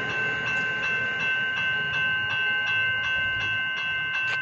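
Level crossing warning bells ringing in quick repeated strikes, about three a second, over a steady ringing tone, with a sharper click near the end: the crossing has activated for an approaching train, before the boom gates come down.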